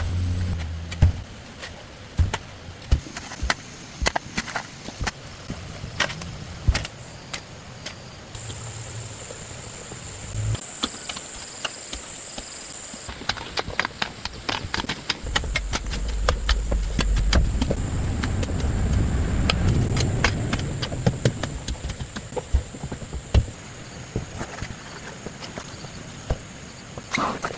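Irregular knocks and taps, over a low rumble that builds up and fades again about halfway through.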